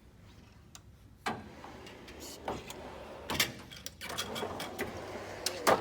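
Steel toolbox drawer sliding on its runners with metal hand tools clinking and rattling inside, a run of clicks and rattles ending in a sharp clack near the end.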